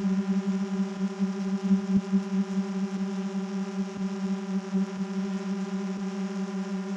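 GoPro Karma quadcopter's propellers and motors humming steadily in flight: one low, steady tone with a stack of overtones, and a faint tick about once a second.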